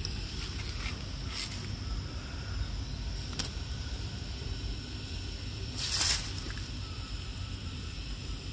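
Quiet outdoor garden ambience picked up by a handheld microphone: a steady low rumble and a faint steady high-pitched tone. A sharp click comes about three and a half seconds in, and a short rustle about six seconds in is the loudest sound.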